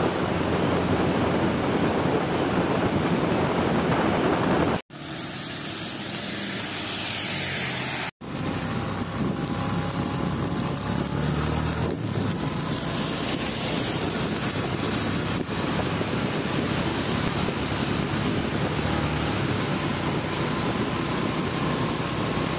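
Wind rushing over the microphone of a moving motorcycle, with the engine running steadily underneath. The sound cuts off sharply twice, about five and about eight seconds in, with a quieter stretch of riding between the cuts.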